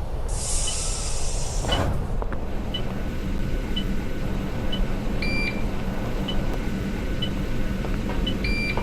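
Inside a double-decker bus: a burst of compressed-air hiss, then the engine running steadily while short high beeps sound about once a second. A two-tone electronic chime sounds twice, about five seconds in and near the end.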